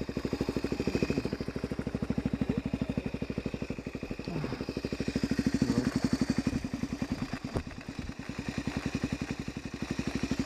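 Dirt bike engine running at low revs with an even, steady beat as it works along a rough trail, the revs swelling and easing. A single sharp knock comes about seven and a half seconds in.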